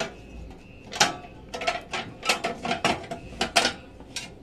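Metal clinking and clattering as a coiled heating element is worked back into a reflow oven's steel heater chamber by hand: a quick run of a dozen or so sharp knocks between about one and four seconds in.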